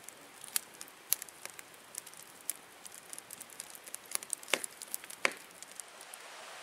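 Wood campfire crackling: irregular sharp pops and snaps from burning logs over a faint hiss, with a few louder snaps scattered through.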